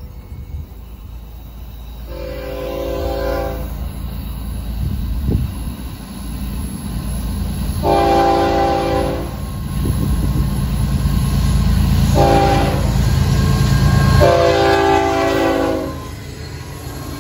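Florida East Coast freight locomotive, a GE ES44C4 diesel, sounding its multi-tone horn for a grade crossing in the standard pattern: long, long, short, long. The locomotives' engines rumble beneath the horn, growing louder as the train approaches and passes.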